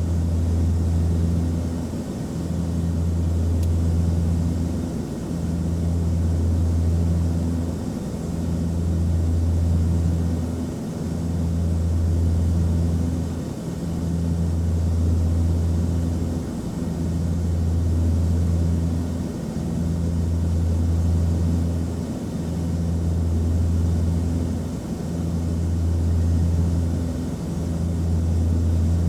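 Cabin drone of an Antonov An-24's twin Ivchenko AI-24 turboprop engines and propellers in flight: a steady low hum that swells and fades in a slow regular beat about every two and a half seconds.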